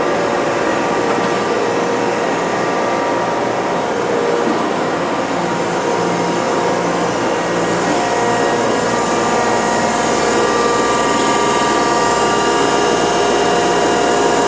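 Kent KGS-620 surface grinder running under power: a loud, steady machine whine with several held tones over it, some of them fading in and out.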